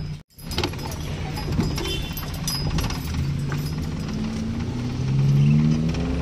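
Car engine and road noise heard from inside the cabin while driving. The engine's pitch climbs steadily for a couple of seconds from about halfway through as the car accelerates.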